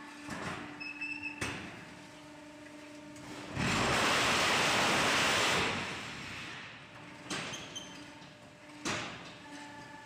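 Fly ash concrete hollow block machine running a molding cycle: sharp metal knocks of the mould and pallet moving, over a faint steady hum, with about two seconds of loud, dense shaking noise in the middle as the machine vibrates the concrete into the mould.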